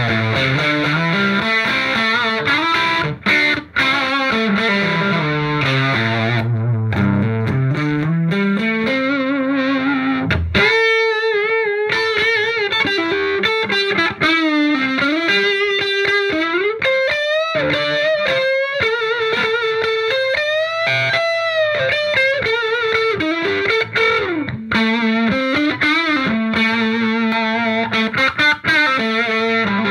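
Overdriven electric guitar, a Gibson Les Paul through a hand-wired Marshall JTM45 Plexi clone head with KT66 power tubes, its gain at about 6 on both jumpered channels. Low riffing at first, then from about ten seconds in a higher lead line with bends and vibrato, returning to the low riffing near the end.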